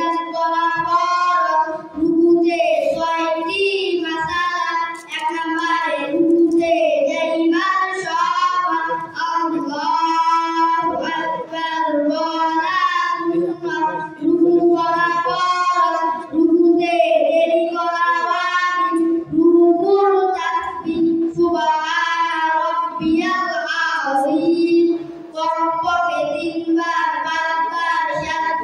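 Two boys singing together into microphones, a melodic unaccompanied song in phrases with brief breaths between them.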